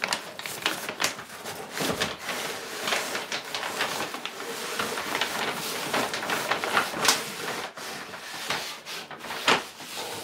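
A paper-wrapped snowboard being slid up and out of a cardboard shipping box: continuous scraping and rustling of cardboard and paper, with many short knocks and scrapes as the board rubs against the box flaps.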